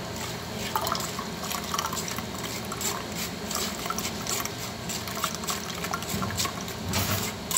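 Pomegranate juice trickling and dripping through a steel mesh strainer into a glass, as a run of small irregular drips.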